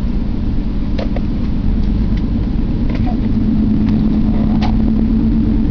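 Steady low road rumble and hum of a moving car heard from inside the cabin, with a few faint clicks and rustles as a small cardboard box is opened by hand.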